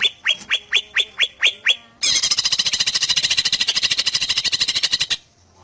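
Green leafbird (cucak ijo) singing: a run of about eight quick, upward-sweeping whistles, then a rapid, even trill lasting about three seconds that stops suddenly.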